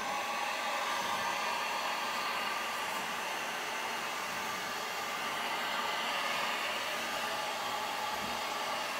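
Handheld electric heat gun running steadily: a continuous rush of blown air with a faint whine. It is blowing hot air over wet acrylic pour paint to warm it and bring out the cells.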